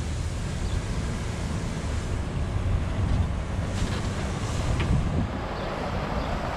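Wind buffeting the microphone: a steady, uneven low rumble, with two faint ticks around four and five seconds in.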